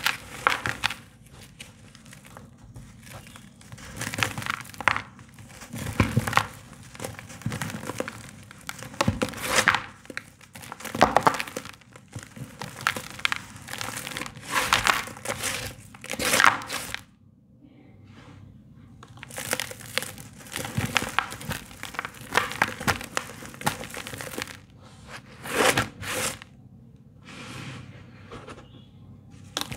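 Dry sand-cement chunks crunching and crumbling as a hand crushes them and rubs them against a mesh sieve. The crunches come in irregular bursts, with a short lull a little past the middle.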